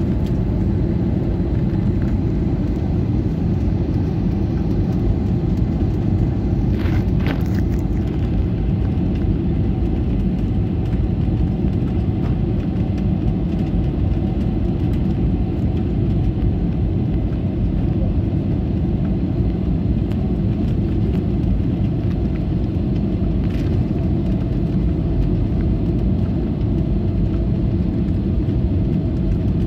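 Steady cabin roar of a jet airliner descending on approach to landing, heard inside the cabin: a deep, unbroken rumble of engine and airflow noise with a faint steady hum.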